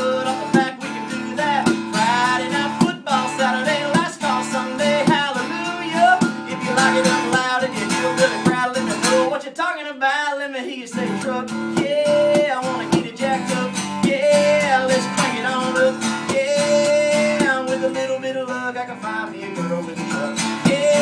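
Two acoustic guitars strumming a country-rock tune, with a harmonica played from a neck rack carrying the melody in an instrumental break.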